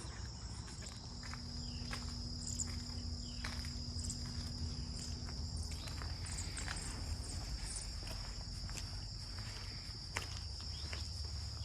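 Footsteps walking at an uneven pace, over a steady high-pitched chorus of insects such as crickets.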